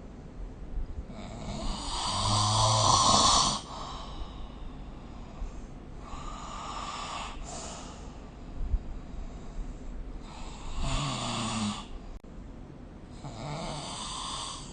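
A sleeping person snoring: four snoring breaths a few seconds apart, the first the loudest.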